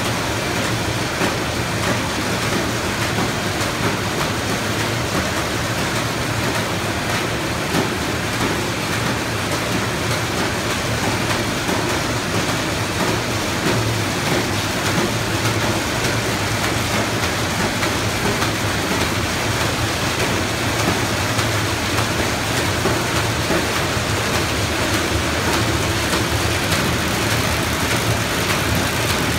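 Nanjing Zono ZD-F450 reel-fed square-bottom paper bag machine running at production: a loud, steady mechanical din with a low hum underneath, as the kraft paper web is drawn off the reel over the rollers.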